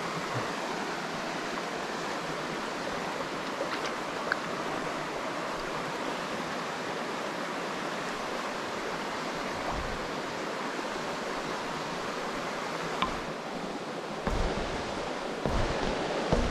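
Shallow mountain creek running steadily over rocks, a constant rushing babble of water. A few soft knocks come near the end.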